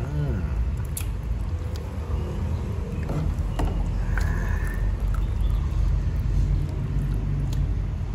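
A steady low rumble, with a couple of faint clicks on top.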